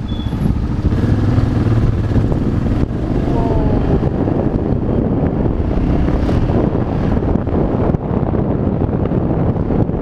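Yamaha XT600's air-cooled single-cylinder four-stroke engine running steadily under way, with a deep, even rumble. A brief rising whine comes about three and a half seconds in.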